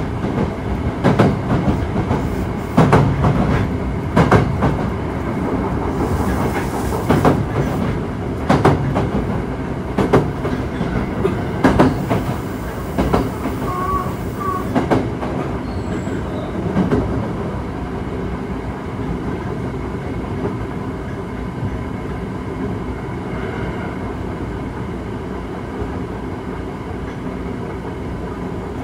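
Osaka Metro 66 series electric train (Toshiba IGBT inverter) running at speed: wheels clacking over rail joints for about the first half, then a smoother, steady running noise.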